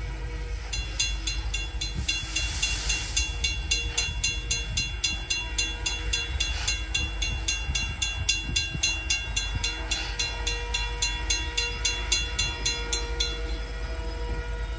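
Norfolk & Western 611, a J-class 4-8-4 steam locomotive, and its passenger cars rolling along the track at low speed, with a rumble underneath. A brief hiss of steam comes about two seconds in. A rapid, even ticking of about four a second runs until it stops near the end.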